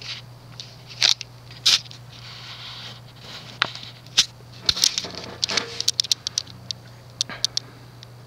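Casablanca Wailea ceiling fan with a 153x20mm motor running on low speed, giving a steady low hum. Scattered sharp clicks and ticks come over it, several in a quick run in the second half.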